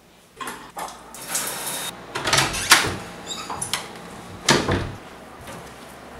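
A door being handled: a series of knocks and clunks, with the loudest about two and a half seconds in and again about four and a half seconds in.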